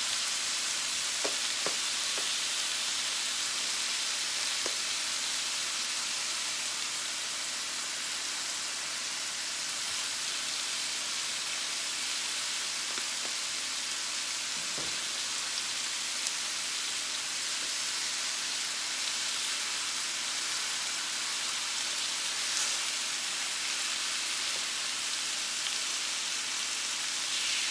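Ribeye steaks sizzling steadily on the ceramic nonstick plate of an Oster reversible electric grill, a constant frying hiss with faint scattered ticks.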